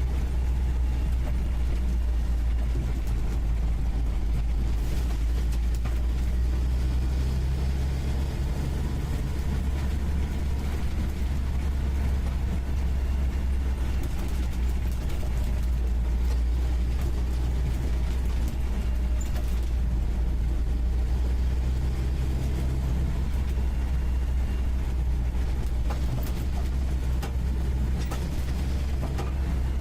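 UAZ 469B's four-cylinder petrol engine running steadily under way, heard from inside the cab, a deep even drone with a few faint knocks and rattles.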